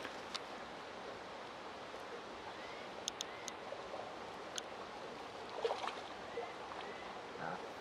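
Quiet pondside ambience with faint watery sounds, a few light clicks between about three and four and a half seconds in, and a brief louder sound a little before six seconds in, while a hooked small mirror carp is played on a match rod at the bank.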